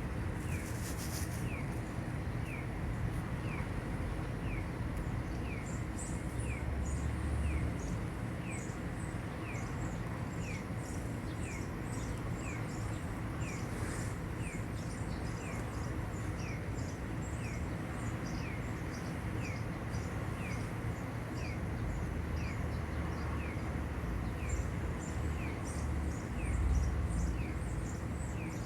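Outdoor background with a short falling chirp repeating about once a second and many higher chirps joining in from about six seconds in, over a steady low rumble that swells briefly near the end.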